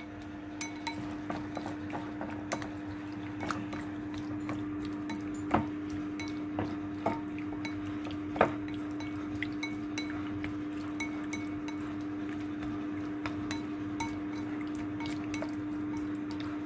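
Wooden chopsticks stirring raw shrimp in marinade in a ceramic bowl: light, irregular clicks and taps of the chopsticks against the bowl, with a few sharper knocks. A steady low hum runs underneath.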